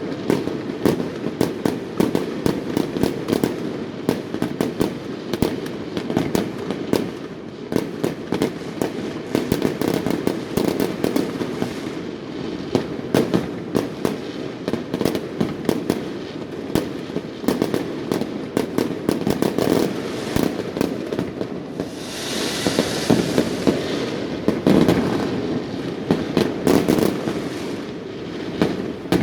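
Fireworks going off in a dense, continuous barrage of rapid cracks and bangs, with a hissing stretch about three quarters of the way through.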